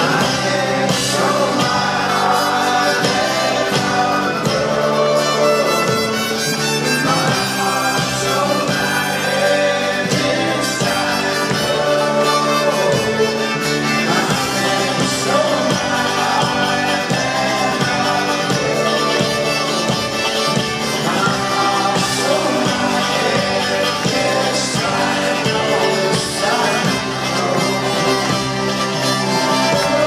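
Folk-rock band playing live: banjo and mandolin over upright bass and accordion, with a voice singing, as heard from the crowd.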